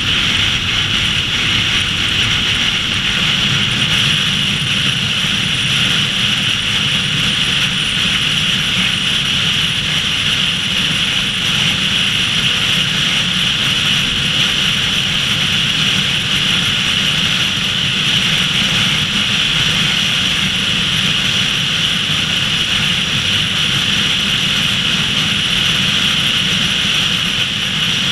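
Steady road and wind noise from a car cruising at highway speed: an unbroken high hiss over a low rumble.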